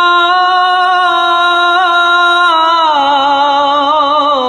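A young man's solo voice reciting the Quran in melodic tajweed style, holding one long vowel steady, then stepping down in pitch about two and a half seconds in and wavering through ornamented turns.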